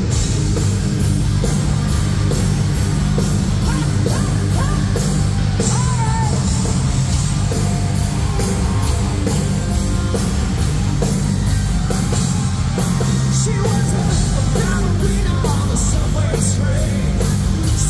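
Live hard rock band playing loud: distorted electric guitars, bass and a steady drum beat, with the singer's vocals over them.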